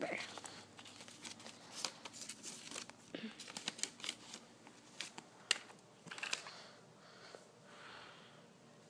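Handling noise of small plastic toy figures being moved by hand: scattered light clicks and taps, with soft rustling about six to eight seconds in.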